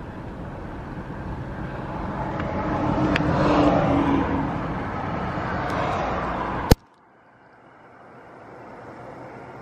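A car passing on the road, its noise swelling to a peak about three and a half seconds in and easing off. About two-thirds of the way through the sound cuts off suddenly with a click, leaving a much quieter background hum.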